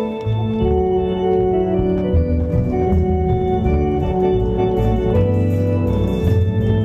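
Organ music: held chords over a low bass line, the notes changing every second or so.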